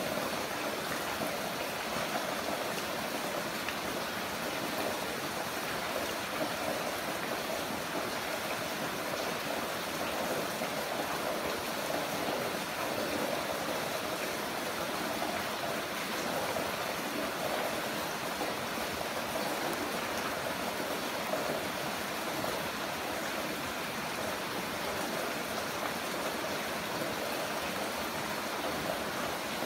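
Heavy rain falling steadily, a dense unbroken hiss of water.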